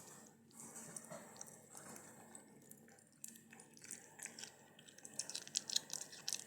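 Cat chewing raw pig kidney: wet smacking and clicking, thickest and loudest near the end.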